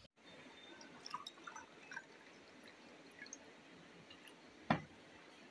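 Faint small ticks and clicks of a tea mug and tableware being handled, with one sharper knock near the end.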